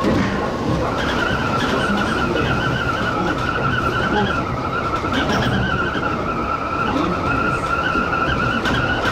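Electric train's steel wheels squealing against the rail on a curve: a wavering high-pitched squeal that sets in about a second in and holds, over the train's running rumble.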